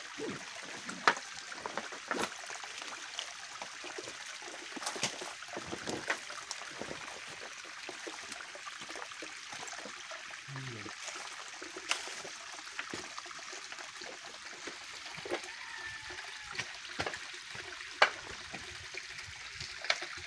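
Thin water trickling down a rock face, a steady light hiss, with scattered sharp clicks and crackles over it.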